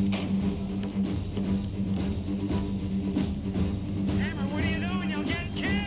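Rock music score with a steady, repeating bass line and drums. About four seconds in, a high, wavering line joins it.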